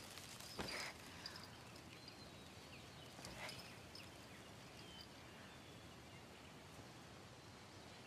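Near silence: faint outdoor ambience with a few soft bird chirps and a brief rustle under a second in.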